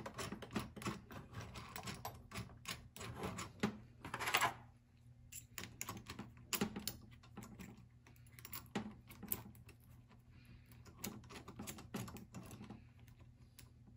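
Small irregular metallic clicks and taps as fingers turn and seat hex nuts on threaded steel rods of an aluminium bracket frame, with a brief scrape about four seconds in.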